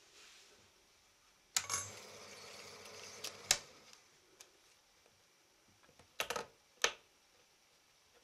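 Bauer T10 S Normal 8 film projector switched on with a click, its motor and mechanism running steadily for about two seconds before a sharp click stops it. A few more sharp clicks from the controls and film handling follow later.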